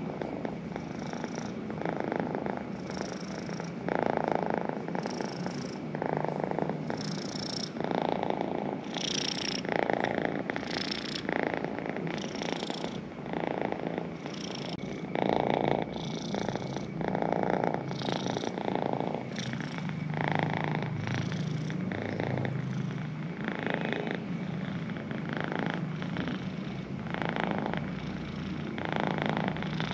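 Domestic cat purring steadily while being stroked, the purr swelling and fading about once a second.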